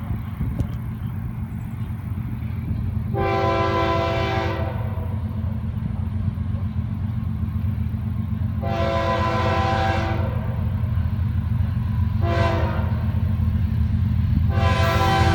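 Florida East Coast Railway diesel locomotive's multi-chime air horn sounding the grade-crossing signal as a freight train approaches: two long blasts, a short one, then a final long one starting near the end. A steady low rumble runs underneath, growing slightly louder.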